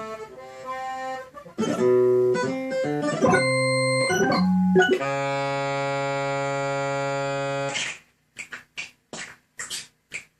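Music playing from DJ software: changing pitched notes and chords, then a long held chord that cuts off abruptly about eight seconds in, followed by a few short noisy bursts.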